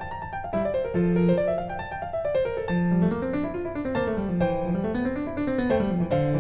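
Background piano music, with quick runs of notes rising and falling in the bass and in the melody.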